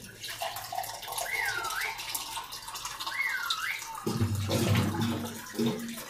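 Purified water poured into a pot of beef broth and vegetables, a running splash that turns fuller and louder about four seconds in. Two short chirps sound over it, about two seconds apart.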